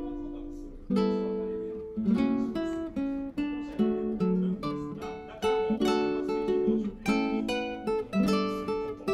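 Background music: a guitar piece of plucked notes and strummed chords that ring and fade, a new one about every second.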